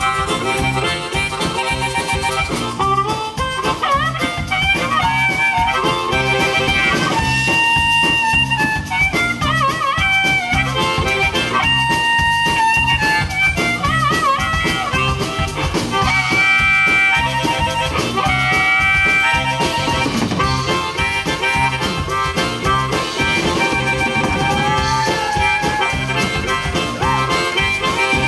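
Amplified blues harmonica solo, the harp cupped against a hand-held microphone, with held and bent notes over a band's electric guitar and drums keeping a steady rock and roll beat.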